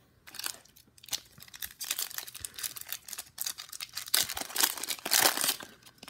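Plastic wrapper of a baseball trading-card pack being torn open by hand and crinkled, in irregular crackling bursts that are loudest about four to five and a half seconds in.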